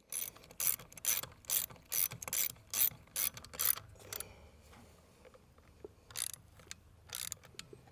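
Hand ratchet clicking as it tightens the diffuser screws on a pool pump: a quick run of about nine short ratcheting strokes, a pause, then three more near the end.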